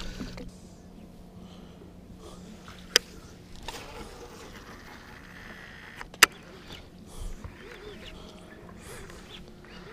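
Quiet open-water fishing-boat ambience: a faint steady low hum, broken by two sharp clicks about three seconds apart while rods are being cast and retrieved.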